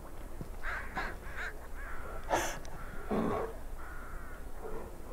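Several short, harsh animal calls in a row. The loudest, sharpest one comes about two and a half seconds in, followed by a lower, longer call.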